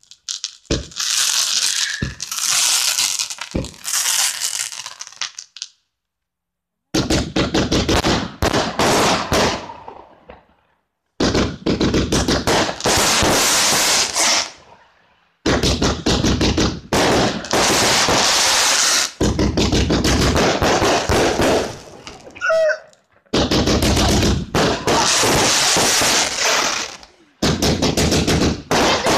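Fireworks going off in rapid runs of sharp crackling bangs, each run lasting a few seconds, with short breaks between runs.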